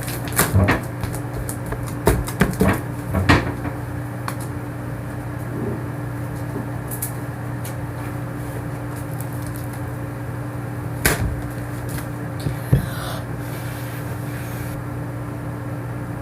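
Homemade slime being squeezed and worked by hand, giving off sharp pops and clicks as trapped air escapes: a cluster in the first few seconds and a couple more past the middle. A steady low electrical hum runs underneath.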